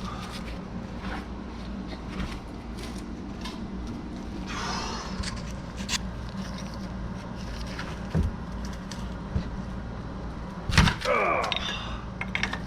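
Wrench working a rust-seized nut on a car's suspension: scattered metal clicks and clinks, a scraping grind about halfway, and a sharp knock near the end followed by a brief squeal as the nut gives.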